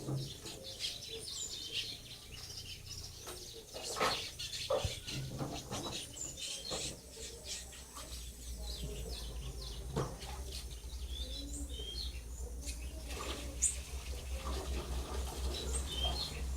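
Several birds chirping and calling in short, high notes throughout, with a few sharp knocks; a steady low rumble comes in about halfway.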